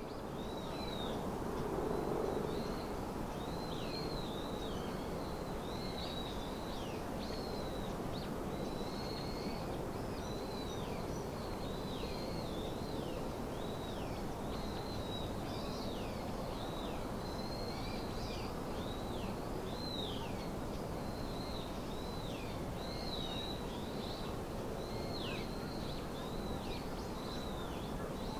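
A bird calling over and over, each call a short high note that falls in pitch, about one or two a second, over a steady outdoor hiss and rumble.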